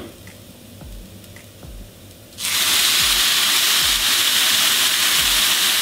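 Chicken broth poured into a hot frying pan of fried rice, onion and carrot, hitting the hot oil with a loud hissing sizzle that starts suddenly about two and a half seconds in and holds steady.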